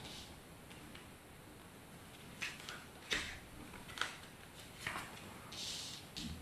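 Cards being drawn from a fanned deck and laid down on a cloth mat: a few soft clicks of card on card, spaced roughly a second apart, then a brief sliding hiss near the end.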